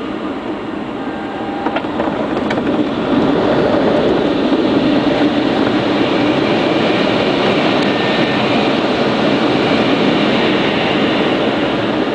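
Steady rush of airflow over the canopy of an SZD-59 Acro glider, heard from inside the cockpit, with no engine. The rush grows louder about three seconds in and stays up, with a couple of faint clicks about two seconds in.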